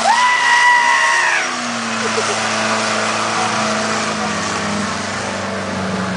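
A long, held, high-pitched shout for about the first second and a half. Then an off-road 4x4's engine runs at steady revs, its pitch holding with a slight dip near the end.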